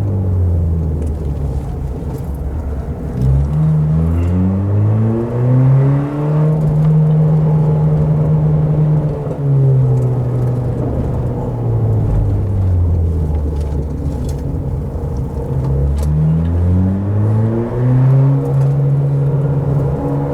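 Car engine pulling and easing off through a run of bends: the revs drop over the first couple of seconds, climb sharply about three seconds in and hold, fall back near the middle, then climb and hold again in the last few seconds.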